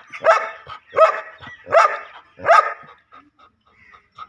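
A dog barks four times, about three-quarters of a second apart, in the first three seconds.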